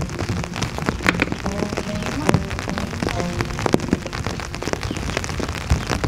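Rain falling steadily, with many individual drops ticking sharply close by.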